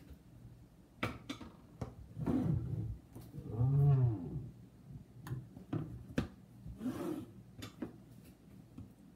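Plastic cutting board dragged and turned on a stainless steel counter, squeaking at a low pitch that rises and falls, three times, loudest about four seconds in. Short clicks and taps of hands and a knife on the board come in between.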